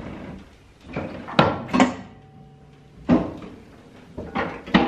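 Two-post car lift lowering a car, with a series of sharp metal clunks about a second apart, some in close pairs.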